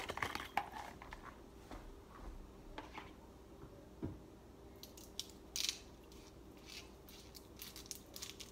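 Faint clicks, knocks and rustles of food containers being handled in a kitchen, with a single thump about four seconds in, over a faint steady hum.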